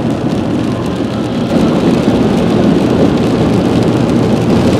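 Rain striking a car's windows and roof, with the steady low hum of the car on the road underneath.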